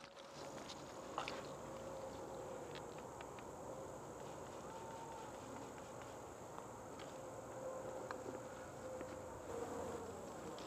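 Steady high-pitched trilling of insects in the grass, with a few faint ticks over it.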